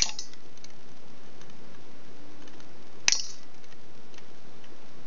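Flush cutters snipping through the metal pins of a pin header close to their holder strip: two sharp snips about three seconds apart, with a few faint ticks just after the first.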